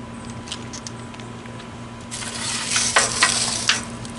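Crackling, rustling noise, like dry material being handled, starting about two seconds in and lasting under two seconds, over a steady low electrical hum.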